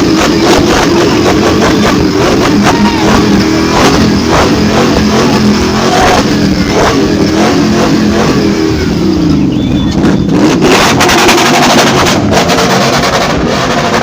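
Drift car's engine running hard at high revs, its pitch wavering, dipping about two-thirds of the way through and climbing again.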